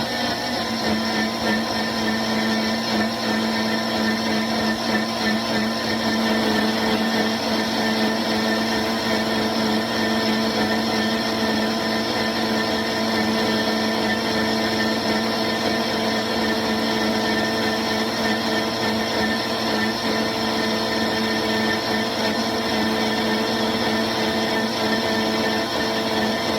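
Countertop blender running steadily, its motor humming under the churn of chopped celery and water being puréed into juice.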